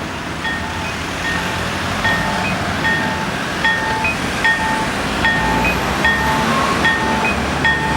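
Traffic noise with short electronic beeps repeating every half second to a second, at two alternating pitches.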